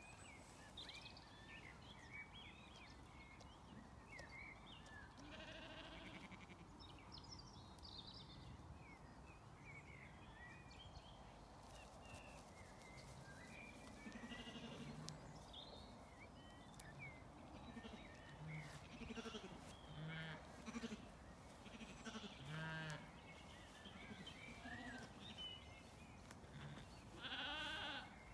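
Zwartbles sheep bleating several times at intervals, with the loudest bleat near the end.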